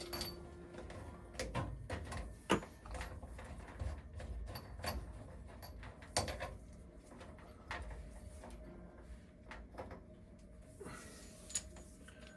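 Hoses and their fittings being handled and connected to the water heater's service valves: irregular light clicks and knocks, a second or so apart.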